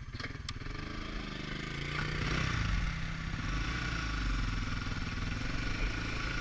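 Sport ATV engine pulling away from idle: the revs climb over the first two seconds, then it runs on steadily. Two sharp clicks sound right at the start.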